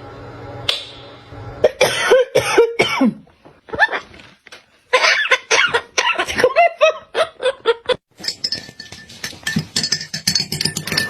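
Parrot calling in short bursts of squawks and chatter that bend in pitch, then a fast rasping run of sounds in the last few seconds.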